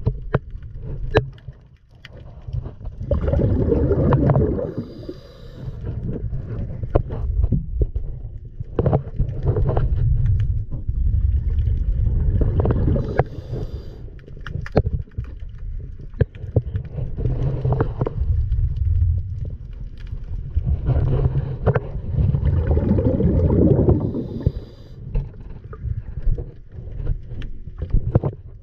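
Underwater recording: a low, uneven water rumble that swells and fades in waves of a few seconds, with many sharp clicks and knocks scattered through it.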